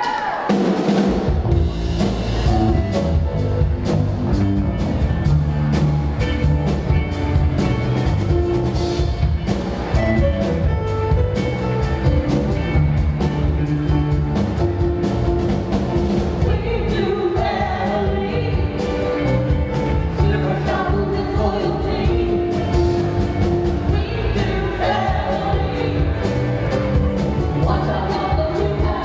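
Live band striking up a song about half a second in: drum kit with a steady beat, electric guitars, bass and keyboard, with voices singing.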